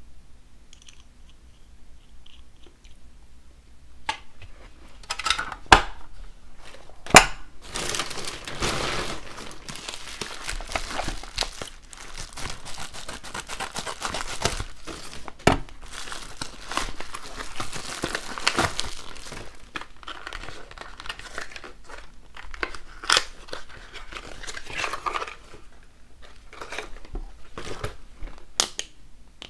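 A plastic mailer bag crinkling as it is handled and cut open with scissors, with scattered sharp clicks and taps; it starts after a few quiet seconds.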